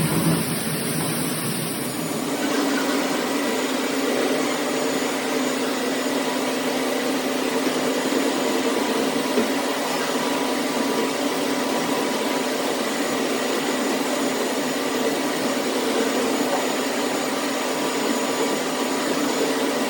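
Industrial lemon washing machine running: a steady mechanical whirring drone with a low hum, its tone shifting slightly about two seconds in.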